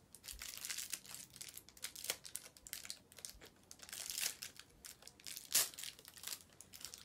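Plastic wrapper of an L.O.L. Surprise doll pack crinkling and tearing as it is unwrapped by hand, in a string of irregular crackles with one louder crackle about five and a half seconds in.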